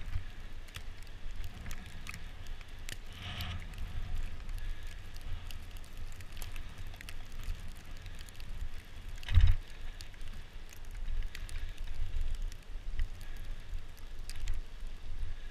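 Bicycle riding over a snow-covered road: wind rumbling on the microphone, with tyre crunch and scattered small clicks and rattles. One hard thump about nine and a half seconds in, the loudest moment.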